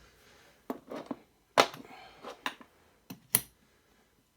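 Sharp metal clicks and a brief scrape of a lock-pick tool being inserted into and handled in a lock cylinder, about six clicks in all, the loudest about a second and a half in.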